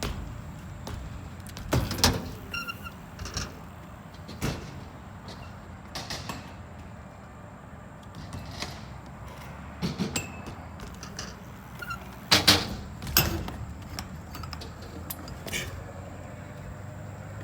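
BMX bike being ridden: a steady rolling rumble of tyres, broken by several sharp knocks and clacks of the bike landing and hitting, the loudest about twelve seconds in.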